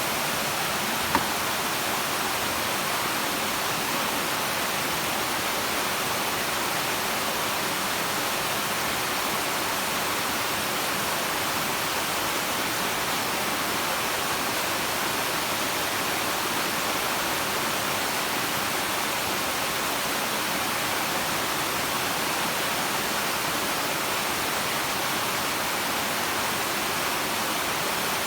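Waterfall: a steady, even rush of falling water, with one brief click a little over a second in.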